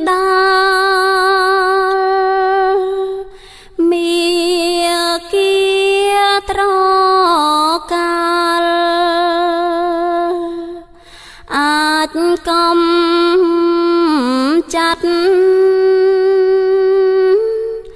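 Khmer Buddhist Dhamma chant sung by a single voice in long, melismatic held notes with a wavering pitch, broken by two short pauses for breath.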